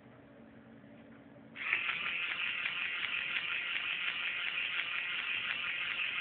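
A soft toy's motorised head mechanism running, a rapid ratcheting, gear-driven buzz as it shakes the head from side to side, starting about a second and a half in after a near-quiet moment.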